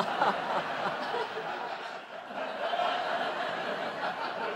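Studio audience laughing at a punchline, a crowd of many voices that is strongest at first and gradually dies down.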